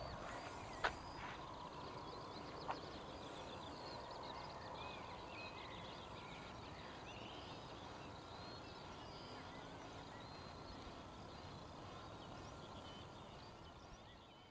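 Outdoor dusk ambience of many birds chirping and singing, short calls overlapping throughout, with two sharp clicks about one and three seconds in. It fades out near the end.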